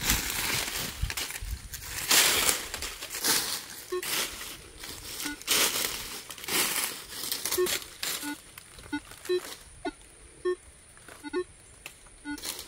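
Footsteps crunching through dry fallen leaves while a metal detector is swept over the ground. From about four seconds in, the detector gives short, low beeps at irregular intervals, one or two a second, and these become the main sound as the crunching fades near the end.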